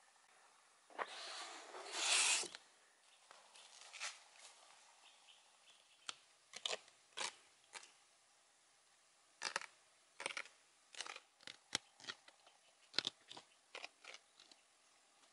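Packing and handling noises: a scraping rustle lasting about a second and a half near the start, then scattered sharp clicks and light knocks as someone moves about inside a small wooden bicycle camper.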